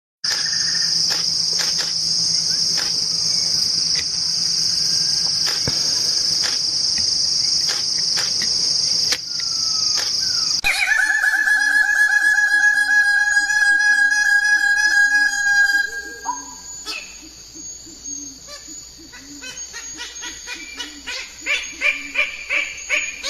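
A steady high-pitched insect drone for about ten seconds, then abruptly a steady pitched whistling tone for about five seconds. This is followed by quieter bird chirps, repeated in quick succession and growing more regular near the end.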